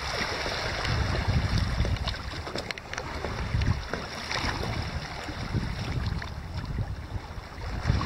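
Wind buffeting the microphone in uneven gusts over the steady wash of waves on a stony shore.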